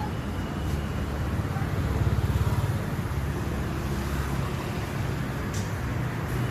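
Motor vehicle engine running steadily amid road traffic, swelling briefly about two seconds in.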